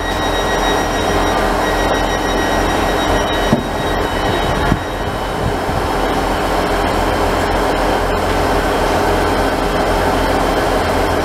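Class 158 diesel multiple unit standing at the platform with its underfloor diesel engines running in a steady drone. There is a brief thump about three and a half seconds in, around when the doors close.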